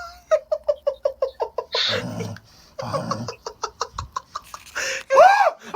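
A person's high-pitched voice making rapid laugh-like pulses, about eight to ten a second, with breathy gasps between, then long rising-and-falling cries near the end.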